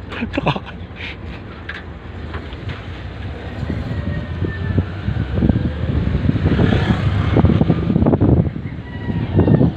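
A vehicle driving along, its engine running with a low rumble and wind buffeting the microphone, getting louder from about halfway through. A few light knocks come in the first couple of seconds.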